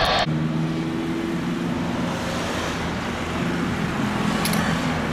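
Steady engine drone with a low, even hum, and a brief sharp click about four and a half seconds in.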